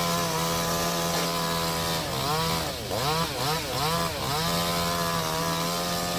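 Chainsaw engine running fast and steady. In the middle its speed drops and picks up again four or five times in quick succession.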